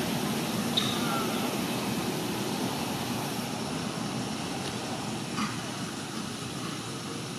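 Steady rushing outdoor background noise, with a faint click about a second in and another a little past the five-second mark.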